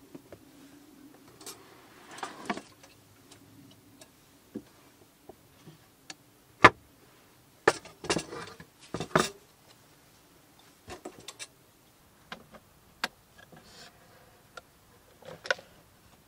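Camping gear being handled on a wooden table: scattered sharp clicks and knocks of wood and metal, from a wooden box and a lantern's wire handle and glass globe. The loudest knock comes about six and a half seconds in, with a cluster of clicks around eight to nine seconds.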